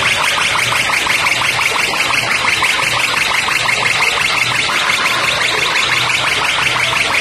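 DJ sound system playing a loud electronic buzzer-like effect: a high tone pulsing rapidly, several times a second, over a repeating low bass pulse.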